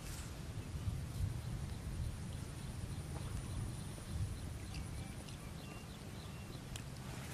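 Outdoor field ambience: a steady low rumble, with a few faint short high chirps near the middle.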